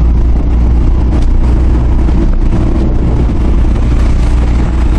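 Hyundai Porter diesel truck heard from inside the cab, rolling along in fifth gear with the accelerator released: a steady, loud low engine and road rumble.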